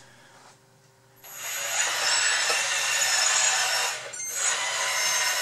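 Electric motors and gearing of a 1:14 Kabolite K966 hydraulic RC wheel loader whirring loudly as it drives. The whir starts about a second in and briefly drops off about four seconds in.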